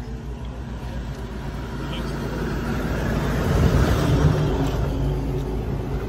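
A motor vehicle's engine running steadily, growing louder toward the middle and easing slightly near the end.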